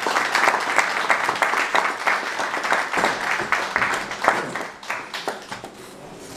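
Theatre audience applauding, the clapping thinning out and fading about five seconds in.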